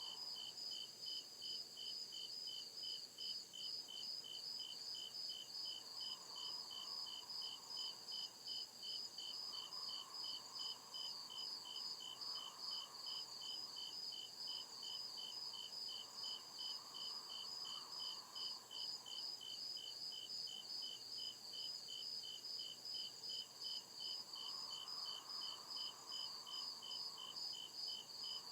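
Crickets chirping at night in a steady, even rhythm, at least two at different pitches, over a constant high insect drone. A fainter, lower hazy sound swells and fades several times.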